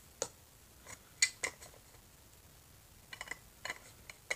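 Light clicks and taps of a small plastic miniature refrigerator being handled, set down on a cardboard box and its tiny door swung open. The clicks come in a few small clusters, about a second in and again after three seconds.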